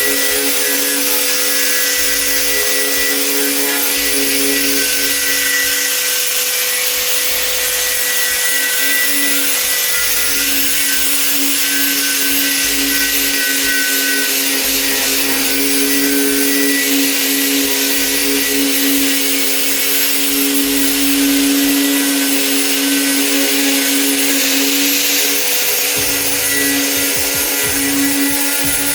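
A handheld electric power tool runs steadily with a constant motor whine while its abrasive scrapes over the cast iron pot lid, stripping the surface before seasoning.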